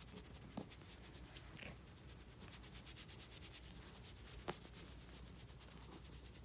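Faint, rapid rubbing and patting of a hand on a cat's fur, an even brushing rhythm of many quick strokes, with two sharper ticks: one about half a second in and a louder one about four and a half seconds in.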